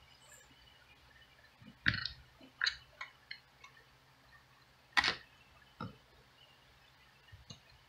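Handheld plastic meters being handled: a quick run of light clicks about two seconds in, then a sharper knock about five seconds in and a softer one just after, as a meter is picked up and set back down.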